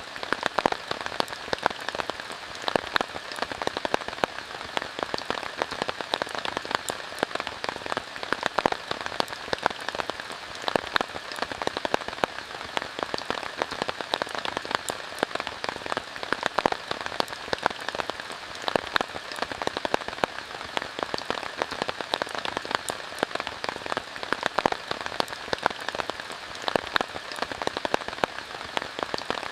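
Steady rain falling, a dense patter of drops, with small sharp crackles from a campfire mixed in.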